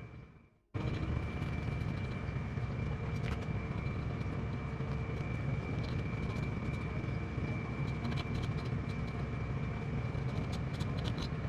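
A steady mechanical drone with a thin high whine running through it. It drops out briefly at the start and comes back abruptly under a second in. A few faint light clicks sound later on.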